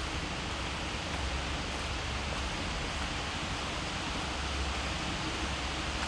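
Steady rushing noise of a distant waterfall, with a low rumble underneath.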